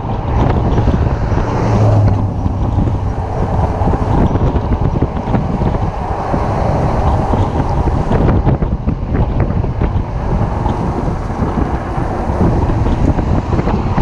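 Wind buffeting the microphone of a handlebar-mounted action camera on an electric bike riding at speed: a loud, steady, rumbling rush with no break.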